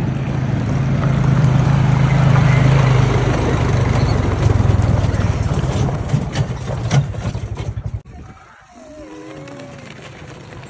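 Quad bike engine running steadily as it tows a train of barrel carts over gravel, with a few sharp clatters shortly before it stops. About eight seconds in the engine sound cuts off abruptly, leaving quieter outdoor sound with a brief voice.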